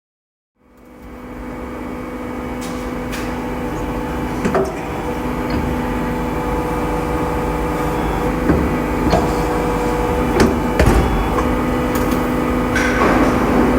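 Machinery running with a steady hum of several fixed tones over a noisy rush, fading in about half a second in, with a scattering of sharp knocks and clanks.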